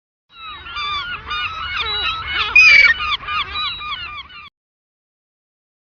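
A flock of birds calling all at once: a dense run of many overlapping short calls that rise and fall, which cuts off suddenly about four and a half seconds in.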